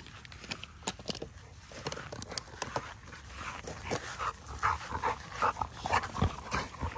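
XL pit bull dogs play-fighting: scattered short clicks and scuffling at first, then a run of short, louder yips and whimpers from about halfway on.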